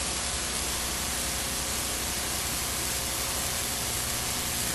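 Steady hiss with a faint low hum: the background noise of an old 1950s television recording's soundtrack, with no programme sound on it.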